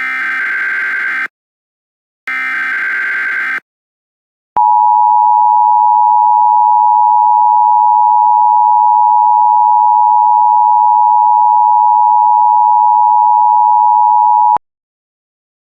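Emergency Alert System tones that open a new alert. First come the last two bursts of the digital SAME header, each a harsh electronic buzz of about a second. After a short gap comes the two-tone attention signal (853 and 960 Hz), a loud steady tone held for about ten seconds that cuts off suddenly.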